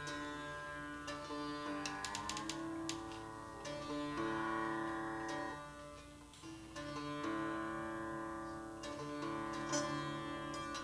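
Sitar being tuned: strings plucked and left ringing, with notes sliding in pitch as the tuning pegs are turned, notably about two seconds in.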